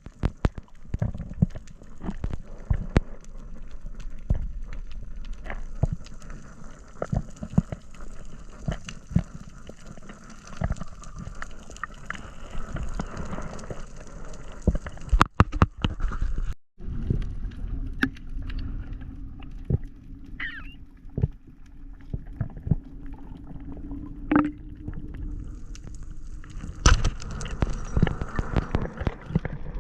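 Underwater sound picked up by a diving camera: many scattered clicks and knocks over a low rumble. After a break about two-thirds of the way through, a faint steady low hum joins in.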